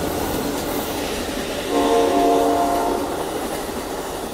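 Amtrak Coast Starlight passenger train rolling past at speed, a steady rumble of wheels on rail that slowly fades. A train horn sounds one chord about two seconds in, lasting just over a second.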